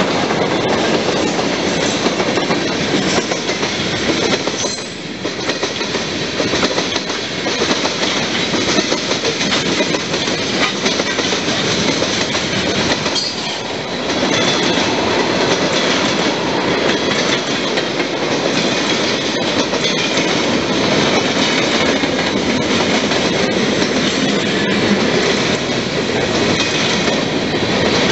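Freight train cars (tank cars, boxcars and covered hoppers) rolling past close by: a steady, loud rumble of steel wheels on rail with clicking over the rail joints.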